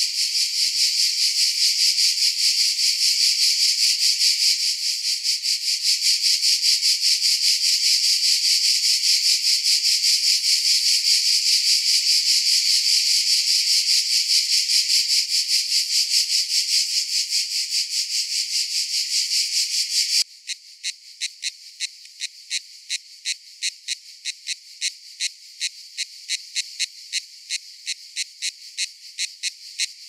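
Cicadas singing in a dense, high-pitched pulsing buzz. About two-thirds of the way through it cuts off suddenly into a quieter call of separate rhythmic pulses, a few a second.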